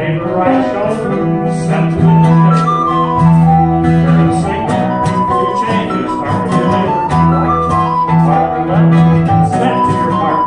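Live acoustic folk trio playing a traditional dance tune: a recorder carries the melody over plucked bouzouki and guitar in a steady dance rhythm.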